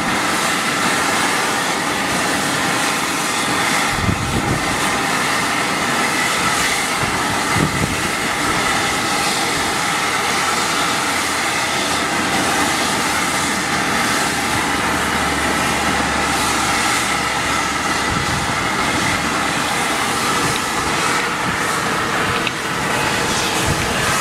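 Fumarole steam vent hissing steadily as steam jets out of a vent in the ground: a continuous, even rushing noise.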